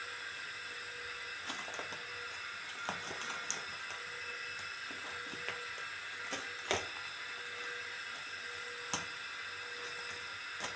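Steady hiss with faint steady hum tones, broken by a few short clicks, the sharpest about two-thirds of the way through. No meowing is heard.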